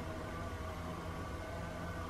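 Small battery-powered motor of a Leaps and Bounds Thrill and Chase electronic cat toy running, a steady whir at constant speed as the toy and feathers circle under its plastic dome.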